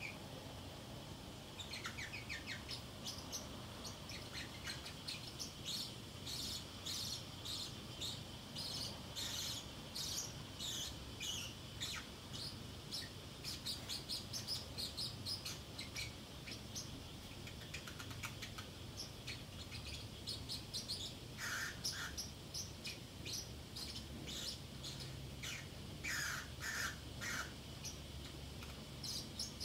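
Pacific parrotlet chattering to itself: a string of short, high chirps in bursts, with a few brief pauses.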